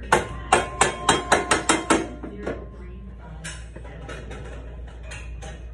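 Metal gym weights clanking together: about eight quick ringing clanks in the first two seconds, then a few fainter knocks.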